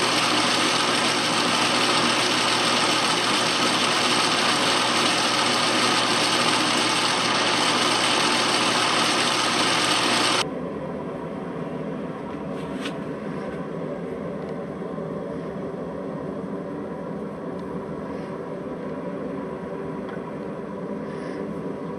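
Atlas metal lathe running steadily with the whir of its gears and drive. The sound cuts off abruptly about ten seconds in, leaving a fainter steady hum with a few light ticks.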